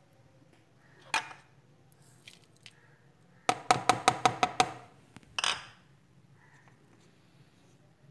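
Small spice bowls clinking as ground spices are tapped out onto raw chicken in a mixing bowl. There is one tap about a second in, then a quick run of about eight ringing taps around the middle, and a short scrape soon after.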